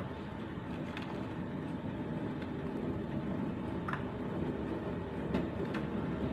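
Steady rushing of a gas stove burner under a steel pot of soup being stirred, with a few light clicks of the ladle against the pot.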